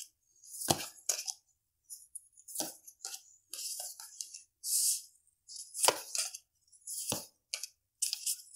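Tarot cards being shuffled by hand and dealt onto a wooden desk: repeated quick riffling and rustling of the cards, with four sharper taps against the desk spread through the stretch.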